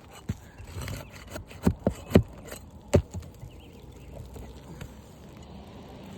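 Several sharp knocks and thumps on an asphalt shingle roof during a shingle removal, about five of them in the first three seconds, followed by quieter rustling and handling noise.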